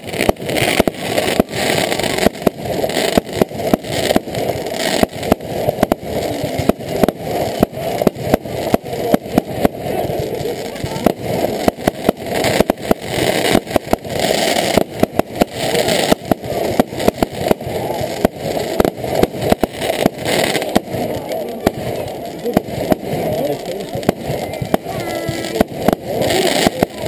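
Fireworks going off in rapid succession: many sharp bangs and crackles, several a second and without a break, over a continuous murmur of crowd voices.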